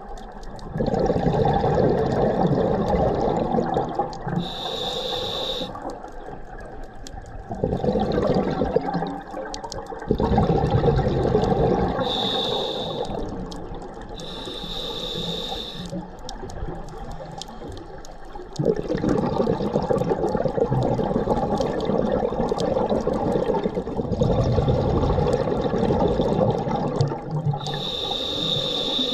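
Scuba diver breathing through a regulator underwater: short hissing inhalations alternating with longer rushes of exhaled bubbles.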